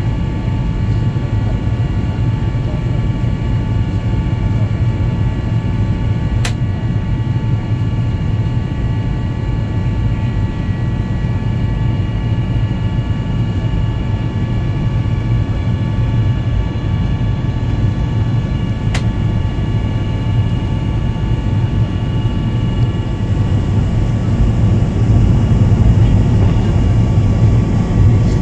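Jet airliner cabin noise on descent: a steady low roar of engines and airflow, with several steady whining engine tones above it. Two short clicks come about six and nineteen seconds in, and the roar grows a little louder near the end.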